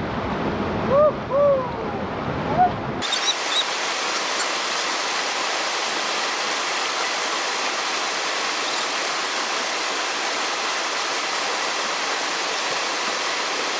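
Madi River water rushing, a steady even hiss that cuts in abruptly about three seconds in. Before it comes a low rumble with a few short voice sounds.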